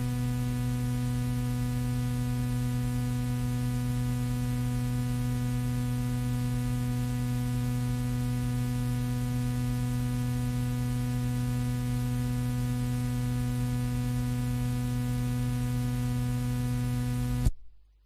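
Steady electrical mains hum over hiss: the noise floor of an old speech recording after the voice has stopped. It cuts off suddenly near the end.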